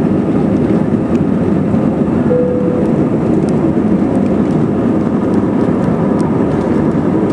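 Jet airliner's engines during the climb just after takeoff, heard inside the cabin as a loud, steady rumble with a faint even hum over it.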